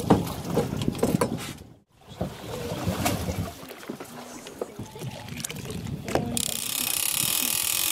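Sound of a boat out on the open sea, made of short clips joined by abrupt cuts. The sound drops out briefly about two seconds in, and an even, steady hiss starts a little after six seconds.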